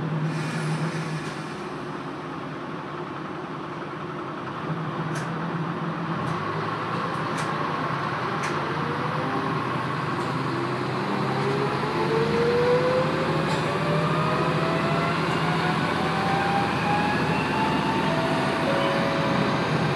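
Diesel railcar moving off from a stand and accelerating, heard from inside the car: the engine's steady hum changes about five seconds in, then a whine climbs steadily in pitch as the car gathers speed, with a few clicks as it gets under way.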